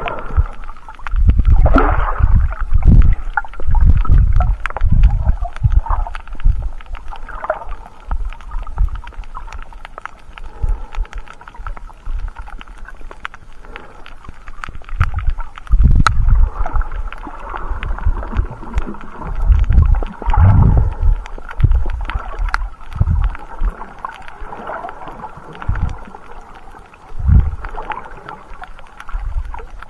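Water moving against a submerged camera as a snorkeller swims over a reef, heard underwater: low rumbling surges that come and go irregularly, several lasting a second or more, over a fainter steady murmur.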